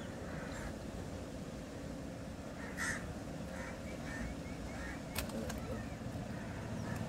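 A few faint bird calls, short and repeated, over a low steady background rumble, with one sharp click about five seconds in.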